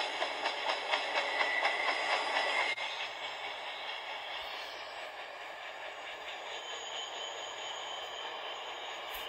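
Canadian Pacific freight train of double-stack container cars rolling past, its wheels clacking over rail joints at about three or four beats a second. About three seconds in, the sound cuts to a quieter, steady rolling noise with a faint high whine. Heard as played back through a laptop's speaker.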